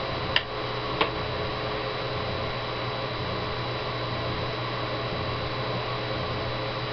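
Steady electrical hum and hiss of room tone, with two short sharp clicks about half a second and a second in.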